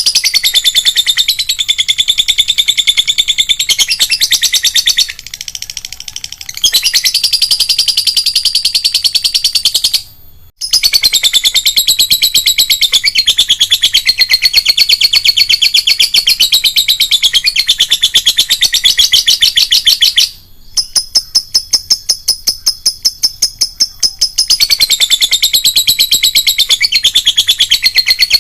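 Lovebird chattering in long runs of rapid, high-pitched chirps, with a quieter patch about five seconds in and brief breaks about ten and twenty seconds in.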